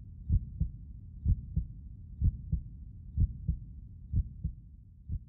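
Heartbeat sound effect: paired low thumps, lub-dub, repeating steadily about once a second over a low rumble.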